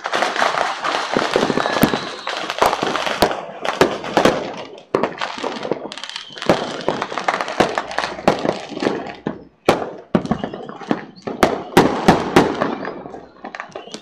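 Fireworks going off in a dense, continuous barrage of sharp bangs and crackles, with two brief lulls.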